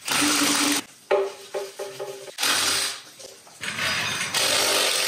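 Background music: a short pitched note repeated four times in quick succession, between bursts of hissing noise lasting about a second each.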